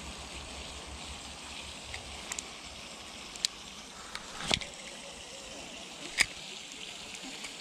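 Faint steady outdoor background with a few scattered sharp clicks from handling a spinning rod and reel. The loudest click comes about six seconds in, as a hand closes on the reel.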